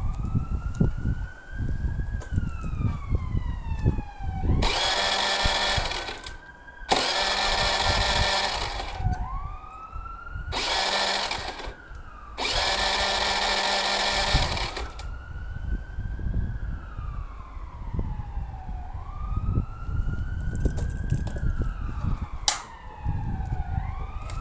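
Honda Lead SCV100 scooter's electric starter cranking in four separate tries, about two seconds each, without the engine catching: it will not start after popping and cutting out on the road. A siren wails up and down in the background throughout.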